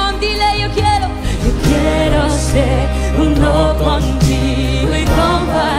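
Christian worship song: singing over steady instrumental accompaniment with sustained low bass notes.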